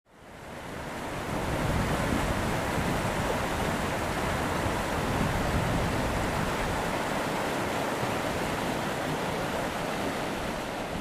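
Fast-flowing stream rushing over rocks: a steady roar of water that fades in over the first second or two.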